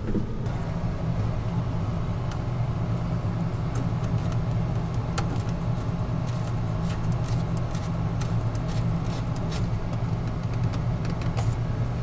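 Steady low mechanical hum, with scattered light clicks and rattles of wiring and parts being handled behind a boat's dash panel.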